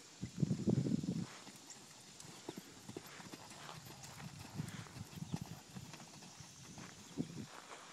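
Dull hoofbeats of a horse cantering on sand footing, loudest in the first second and fainter after.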